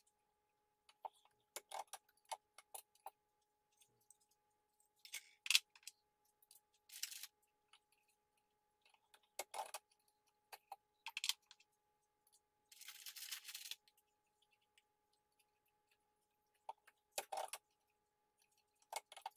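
Sparse metallic clicks and clinks of 300 PRC brass cartridges and a reloading press being worked by hand while bullets are seated, with a few short rattles in between.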